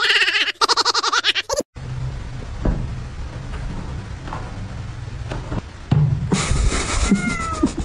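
A white cat's loud, pulsing yowl as a cut lime is pressed to its head, cutting off about a second and a half in. Then a few light knocks as a plastic basin bumps the cabinet and wall, and a short cry falling in pitch near the end.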